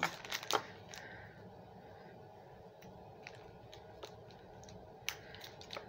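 A few scattered soft clicks and light crinkles as a small clear plastic bag holding a metal pendant is handled, the two clearest clicks in the first second and fainter ones later.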